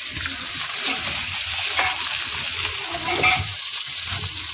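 Fish pieces frying in hot oil in a kadai, a steady sizzle with scattered small crackles.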